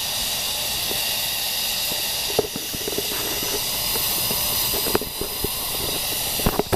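Petromax Rapid 829/500CP kerosene pressure lantern burning with its mantle lit; the burner gives a steady hiss. A few sharp ticks sound over it, at about two and a half, five and six and a half seconds in.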